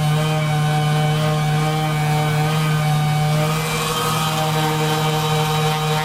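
A steady low-pitched hum with overtones, with a brief hiss about four seconds in.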